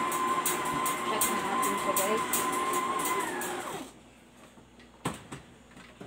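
Electric stand mixer kneading ube bread dough: its motor runs with a steady whine and a regular ticking. About four seconds in it is switched off and the whine falls away. A single knock follows about a second later as the mixer head is tilted up.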